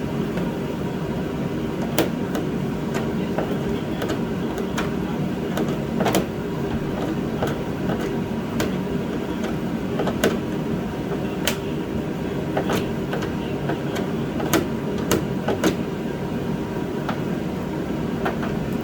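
Sharp plastic clicks and snaps, a dozen or so at uneven intervals, as a windshield washer nozzle is twisted and worked out of its mount with pliers, over a steady low mechanical hum.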